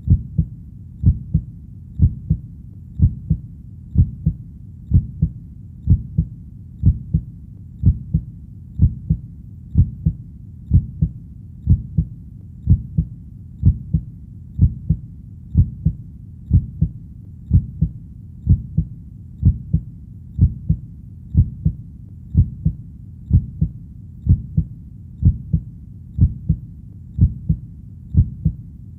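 A heartbeat beating steadily at about sixty beats a minute. Each beat is a low double thump (lub-dub).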